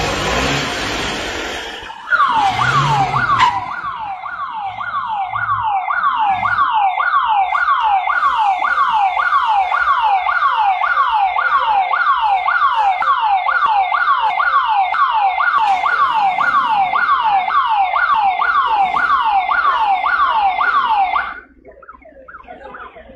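An electronic alarm siren sounding a fast, repeated falling tone, about two sweeps a second, that cuts off suddenly near the end. A couple of seconds of loud rushing noise come before it.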